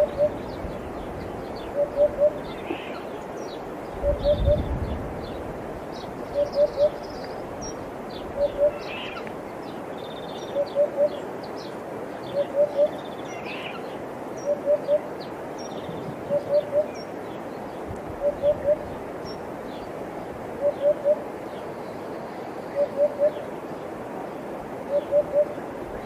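Eurasian hoopoe calling its low three-note 'oop-oop-oop', repeated about every two seconds, with sparrows chirping in the background.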